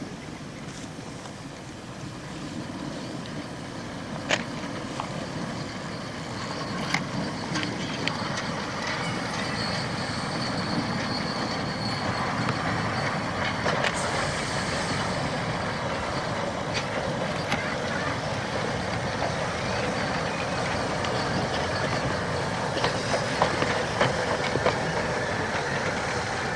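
Narrow-gauge steam locomotive hauling coaches, its running noise growing steadily louder as it approaches and passes, with a few scattered knocks and clanks.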